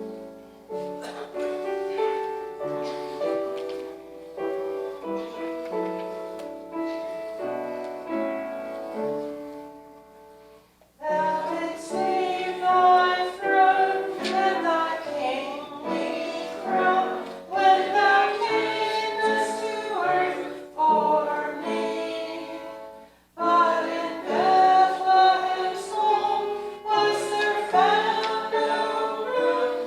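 A hymn's instrumental introduction in steady chords, then a church congregation singing the hymn with accompaniment from about 11 seconds in, with a short break in the singing near the end.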